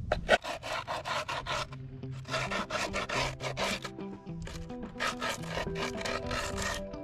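A metal tool rasps back and forth along the edge of Mob skateboard griptape, scoring the grit against the deck's edge to mark the line for trimming, in quick repeated strokes. Background music with steady notes comes in about two seconds in.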